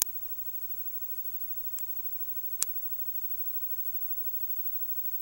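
Faint steady hiss with a low hum, broken by three sharp clicks: a loud one at the very start, a softer one just under two seconds in, and another loud one about two and a half seconds in.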